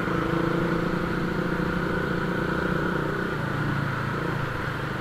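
Motorcycle engine running steadily at low speed in slow traffic, a steady hum with road noise that fades a little over the last second or so.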